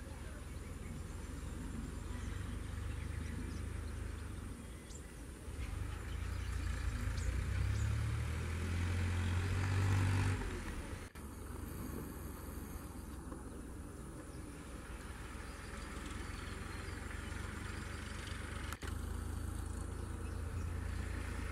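Mahindra Arjun 555 DI tractor's four-cylinder diesel engine running under load. It grows louder and rises in pitch for a few seconds about a third of the way in, drops briefly near the middle, then runs steadily at a lower pitch.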